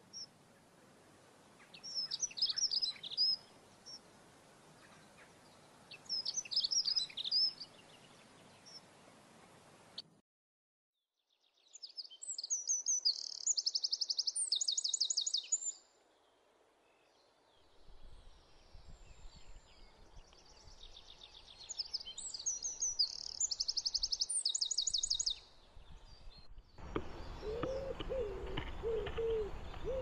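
Garden songbirds singing in short bursts of high twittering and rapid trilled phrases, the sound cutting out briefly about ten seconds in. Near the end, a low, repeated cooing call begins.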